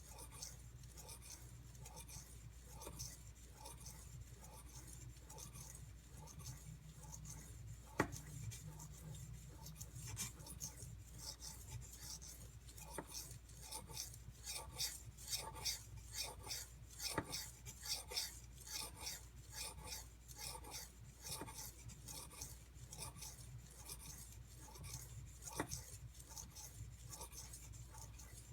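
A steel knife blade being ground back and forth on a coarse 320-grit whetstone, thinning the blade and working a convex bevel. It makes rhythmic scraping strokes, about two a second, with a few sharp knocks.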